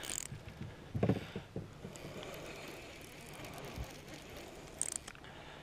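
Fishing rod and reel being worked against a hooked fish: faint mechanical reel clicking and handling noise, with a knock about a second in and a short hiss near the end.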